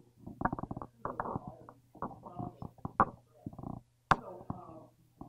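Indistinct speech from someone talking off-microphone, over a steady low hum, with one sharp click about four seconds in.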